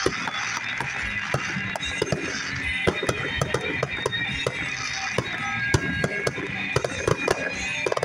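Music playing on a car radio, with scattered sharp pops and crackles of fireworks through it.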